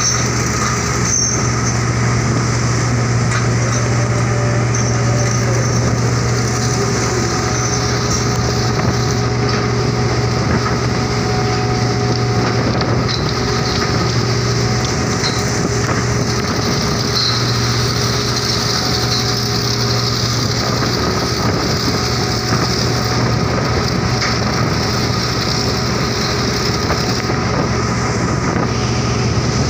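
Diesel engines of heavy coal-loading machinery, a wheel loader and a grab crane, running steadily in a ship's cargo hold: an unbroken low hum that holds the same level throughout.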